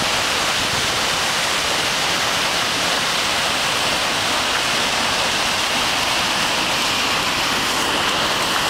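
Seljalandsfoss waterfall and the shallow stream below it: a steady, unbroken rush of falling and running water.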